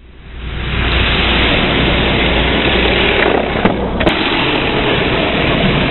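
Pinewood derby cars rolling down an aluminum track toward the finish line, a steady rumbling whir of wheels on metal that rises in over the first second and drops away briefly about two-thirds of the way through.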